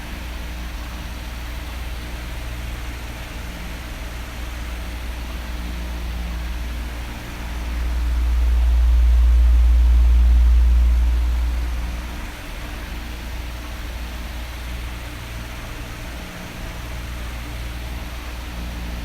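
Electric oscillating fan blowing steadily: an even airy hiss over a low rumble. About halfway through, the rumble swells and then fades again as the fan sweeps toward and away from the microphone.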